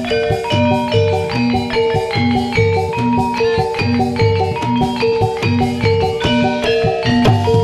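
Javanese gamelan playing jathilan dance accompaniment: bronze metallophones and gongs struck in a fast, evenly repeating pattern, with ringing notes sustaining between the strikes.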